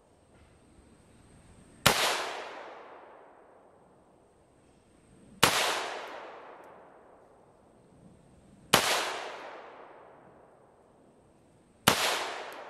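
Four rifle shots from a custom-built AR-15 in .300 Blackout firing factory full-metal-jacket rounds, spaced about three seconds apart. Each shot is sudden and dies away over about two seconds.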